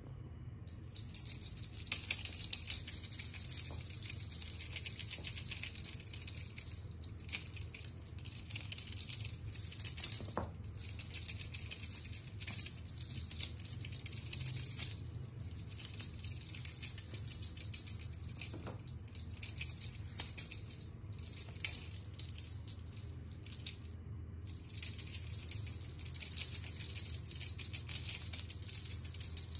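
Rapid, high rattling jingle of a shaken toy. It runs in long stretches with short breaks, the clearest a clean pause about three-quarters of the way through.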